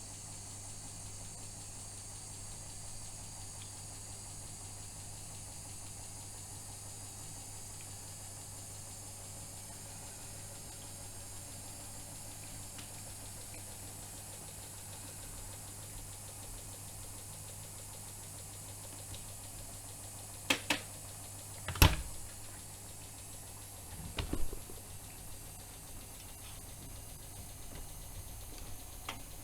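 AEG Öko-Lavamat 76730 washing machine running with a steady low hum and a faint high whine that slowly falls in pitch. Near the end come a few sharp knocks, the loudest about 22 seconds in, then a duller knock.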